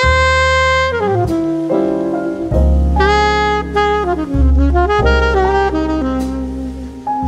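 Background music: an instrumental track with a lead melody that slides between notes over a steady bass line.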